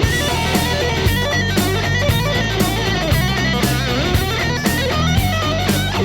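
Recorded song with electric guitar over bass and drums, the beat falling about twice a second.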